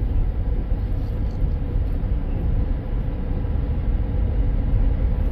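Steady low rumble of a moving car, with road and engine noise heard from inside the cabin.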